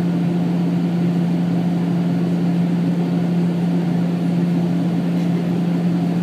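Airliner cabin noise in flight on descent: a steady low hum over a constant rush of engine and airflow noise.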